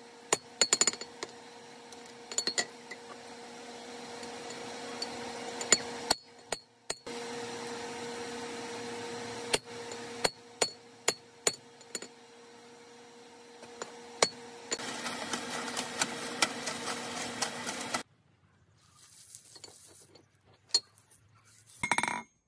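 A hand hammer striking red-hot 4140 steel on an anvil while a hammer head is forged. The blows come irregularly, each a sharp metallic clink with a high ring, over a steady low hum. The blows stop about three quarters of the way through.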